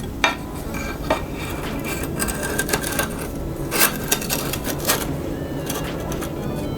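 Metal tools and bike parts being handled at a workstand: a scattering of sharp clinks and knocks over a steady background hum.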